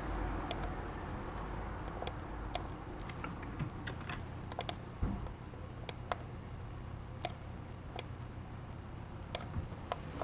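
Clicks of a computer mouse and keyboard, about fifteen short sharp clicks at irregular intervals over a low steady hum.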